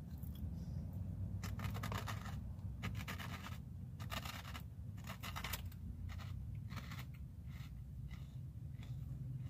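Close-up crunching of baked shrimp chips being chewed: a series of crisp crunches, closest together between about one and a half and six seconds in, over a steady low hum.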